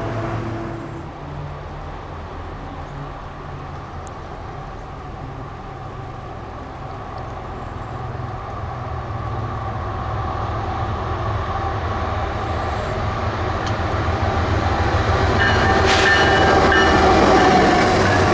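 Diesel locomotive of a freight train coming out of a rock tunnel and passing close by: a low engine drone that grows steadily louder. Near the end the wheels and empty coal cars join in with sharper rail noise and a single clank.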